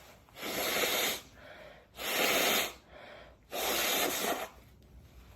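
A woman blowing her nose three times in a row, each blow a noisy rush lasting about a second.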